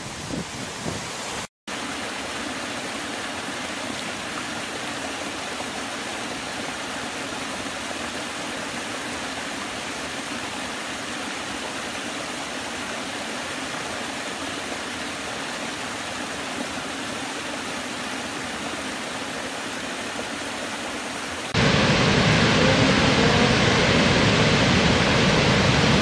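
Running water throughout, with no tones or rhythm. Most of it is a small stream splashing steadily over low rock steps. Near the end this gives way to the much louder, deeper rush of a large waterfall. In the first second and a half the water is rougher, with wind on the microphone, before a moment of silence.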